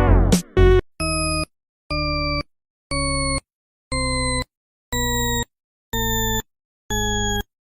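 A series of electronic beeps, one about every second, each lasting about half a second, starting about a second in and varying a little in pitch from beep to beep. Just before them, a short falling synth sweep ends the music.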